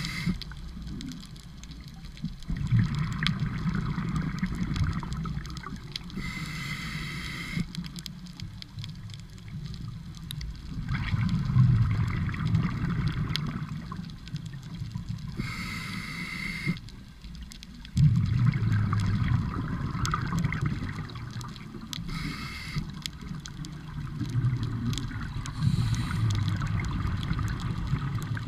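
Scuba diver breathing through a regulator underwater: a short hissing inhale, then a few seconds of low, gurgling exhaust bubbles, repeating several times in a slow, even breathing rhythm.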